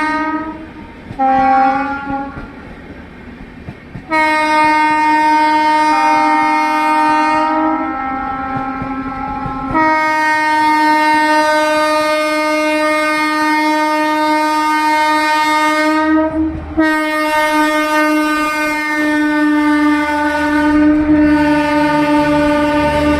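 Indian Railways WAG7 electric locomotive's horn: a short blast, then long, nearly continuous blasts in two tones with one brief break, over the rumble of a train on the rails that grows louder near the end.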